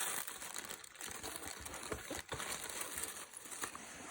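Packaging crinkling and rustling as it is handled, with a few light knocks about two seconds in.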